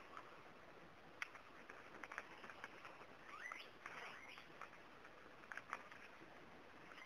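Faint birds chirping in park trees, with a few short rising calls clustered about halfway through, over quiet outdoor background and scattered soft ticks and taps.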